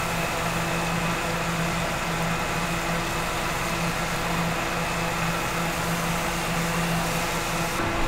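Steady machine hum, a motor or fan running continuously under a broad rushing noise. Its deepest tone drops away just before the end.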